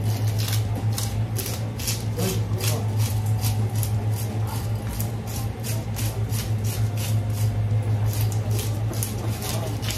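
Scales being scraped off a large Japanese meagre (giant croaker) in quick repeated strokes, about three a second, over a steady low hum.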